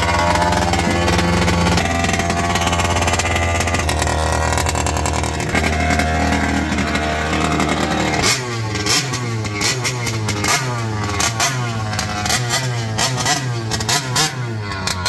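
Taylor RC 50 GT two-stroke petrol engine in a large-scale RC monster truck, running at a steady note. From about eight seconds in, it is revved up and down over and over, about once a second.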